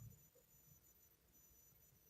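Near silence: faint room tone in the pause between a sleeping person's snores, with the last of one snore dying away right at the start.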